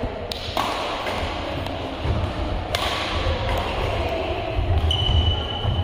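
Badminton rackets hitting a shuttlecock in a rally: two sharp hits about two and a half seconds apart, ringing in a large hall. A low rumble runs under the second half, and a thin high steady squeak comes in near the end.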